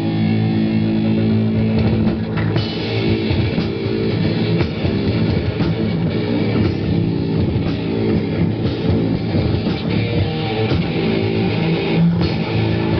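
Rock band playing an instrumental passage: guitar chords ring out, and the drum kit comes in after about two seconds, driving the rest.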